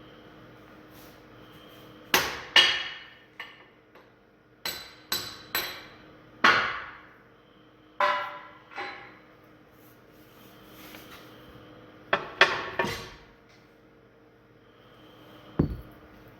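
Hammer striking steel about a dozen times in irregular groups, each blow ringing, as the loader's hydraulic tilt cylinder pins are driven out. A single duller thump comes near the end.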